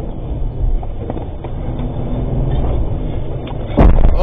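Engine and road rumble inside the cabin of a moving armoured cash-in-transit vehicle, heard through a dash cam's low-quality sound. A sudden loud bang comes near the end.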